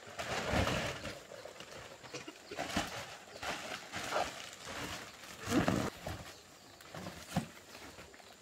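Plastic sacks of bamboo shoots being handled and lifted, rustling and crinkling in irregular bursts, with two louder dull bumps about half a second in and midway.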